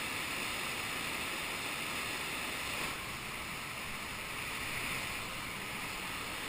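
Whitewater river rapids rushing, a steady even hiss of turbulent water.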